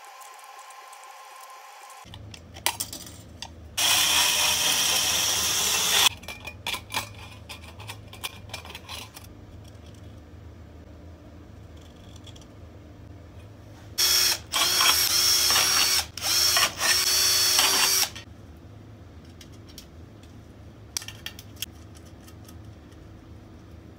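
Power drill drilling holes through a thin sheet-metal grill plate: one run of about two seconds, then a cluster of four short bursts some ten seconds later. Scattered clicks and clatter of metal parts being handled come between the runs.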